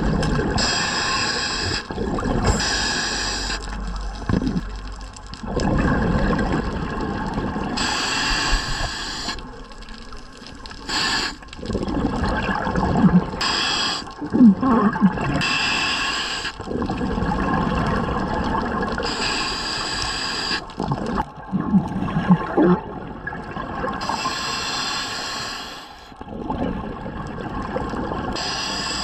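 Scuba diver breathing through a regulator underwater: a short hissing inhale every two to five seconds, each followed by a longer gurgling rush of exhaled bubbles.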